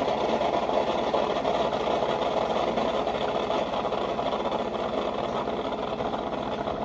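Mars FLAVIA Aroma single-serve brewer running steadily while it dispenses hot chocolate into a glass mug: a continuous mechanical hum from the machine's pump with a fast, even pulse.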